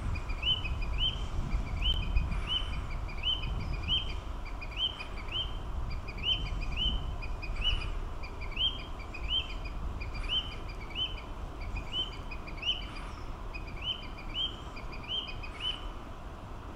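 Male Narcissus flycatcher singing: short, rising whistled notes, often in pairs, repeated steadily, over a low rumble.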